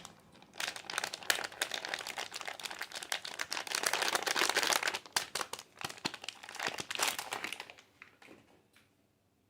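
Soap packaging being unwrapped by hand: a dense run of crinkling and crackling that trails off near the end.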